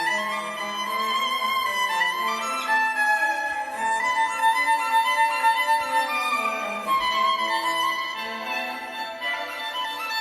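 Violin music, a melody of notes held about half a second to a second each, stepping up and down.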